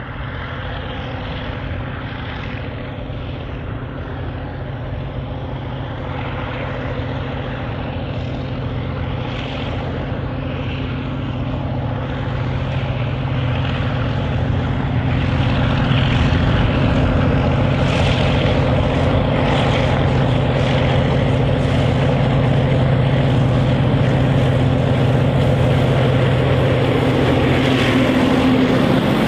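Diesel-electric locomotives hauling a long iron ore train, their engines running with a steady drone that grows louder as the train approaches and is loudest as the locomotives pass close near the end.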